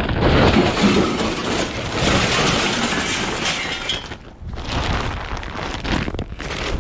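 Scrap being thrown onto a heap of metal scrap: a long run of crashing and clattering with breaking, shattering sounds, a short lull about four seconds in, then more clattering.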